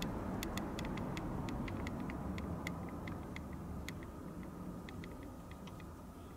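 Low rumble of a passing vehicle, slowly fading away, with many light irregular clicks over it.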